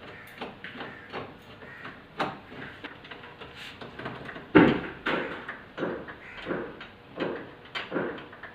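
Phillips screwdriver backing out a doorknob's mounting screw: a run of short metallic clicks and scrapes, one with each twist of the driver, roughly two a second, the loudest a little past the middle.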